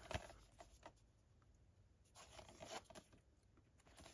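Near silence with faint handling sounds from a Blu-ray keep case in its slipcover being moved in the hands: a few light clicks and rubs near the start and again about two seconds in.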